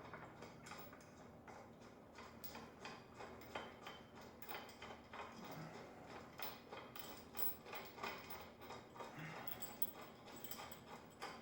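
Faint metal clicks and ticks, two or three a second, as a short bolt with a washer is run into a motorcycle's rear lowering link.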